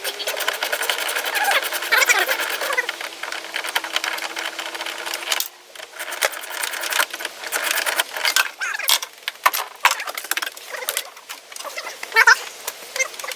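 A small power tool motor runs with rapid clicking, its pitch holding steady until it stops about five seconds in, followed by irregular clicks and rattles of parts being handled.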